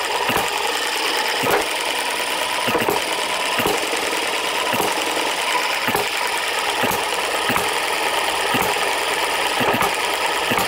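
Microcosm M90 hit-and-miss model engine running, its gears and valve gear clattering steadily, with a sharp knock about once a second from its hits, set here to around 48 a minute on softer springs.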